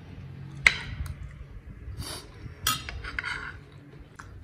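Cutlery clinking against a dish while eating: two sharp clinks about two seconds apart, among softer clatter.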